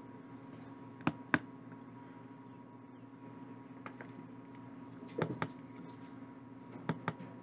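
Buttons on a chicken egg incubator's digital control panel being pressed: three pairs of short, sharp clicks over a steady low hum.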